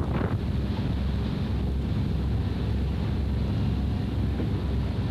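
Wind buffeting the microphone on a moving passenger boat's open deck, over the steady low rumble of the boat underway.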